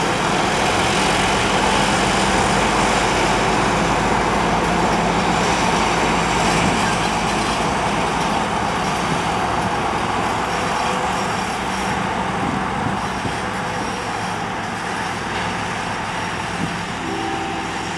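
2M62U diesel locomotives' two-stroke diesel engines running as the locomotives pull past, a loud, steady machine noise that eases off slightly over the last several seconds as they move away.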